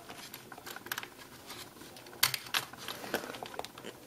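Light, irregular clicks and taps of a small screwdriver being handled against a MacBook's memory door and its screws, the strongest about two seconds in.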